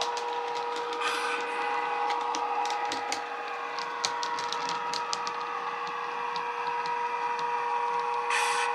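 Class 92 electric locomotive sound from a DCC sound decoder played through the model's small speaker: a steady electric whine at two constant pitches, with sharp clicks from the model's wheels on the track. Two short bursts of hiss come about a second in and near the end.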